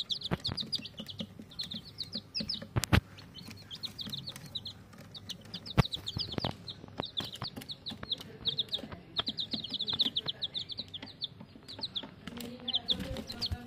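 Domestic chicken chicks peeping: rapid high chirps that come in bursts with short pauses. Sharp knocks come between them, the loudest about three and six seconds in.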